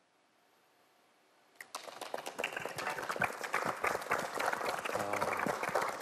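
A moment of hush after the final note, then about a second and a half in a studio audience bursts into applause that continues.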